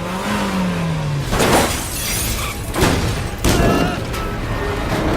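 Car crash sound effects over music: several heavy impacts with glass shattering, about a second and a half, three seconds and three and a half seconds in.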